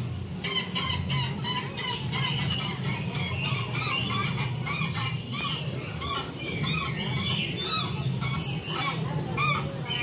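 Bird squawks and chirps, many short calls in quick succession, over a steady low hum.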